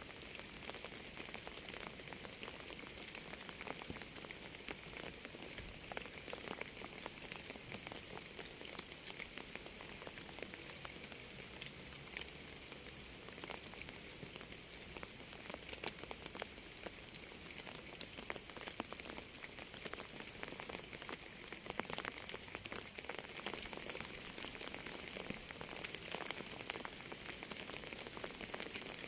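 Steady rain: an even hiss with many sharp ticks of individual drops, heaviest in the high range.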